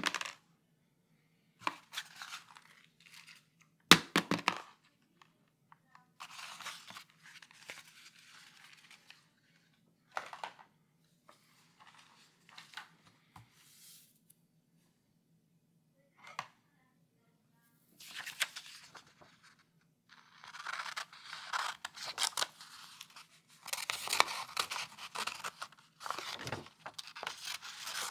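A blank sheet of paper being handled and torn: two sharp snaps of the sheet near the start, short bursts of crisp rustling through the middle, then longer stretches of dense crackling tearing and crumpling in the last third.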